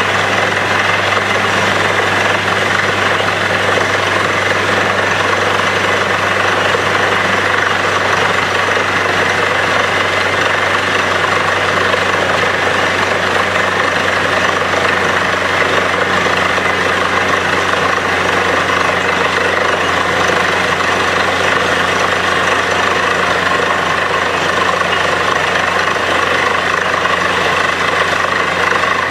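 Borewell drilling rig running steadily at one even pitch while drilling, a loud unbroken engine drone with a deep hum.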